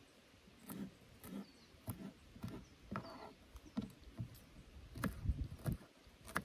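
Knife cutting a green bell pepper on a wooden cutting board: irregular knocks and taps about twice a second, with a few heavier thumps about five seconds in. Faint bird chirps sound now and then.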